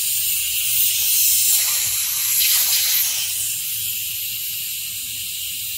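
Compressed air hissing steadily out of the partly opened drain valve at the bottom of a Husky 6-gallon oil-free air compressor tank as the tank is bled down. The valve is opened slowly to keep the hiss down. The hiss swells briefly about a second in and eases a little near the end.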